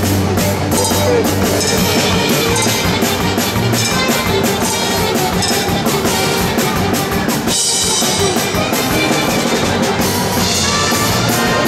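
Loud music with a driving drum-kit beat, with a short break about two-thirds of the way through.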